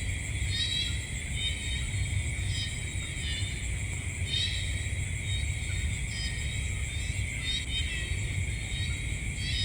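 Night insect chorus: a steady high trilling drone with repeated chirping pulses every second or two, over a steady low rumble.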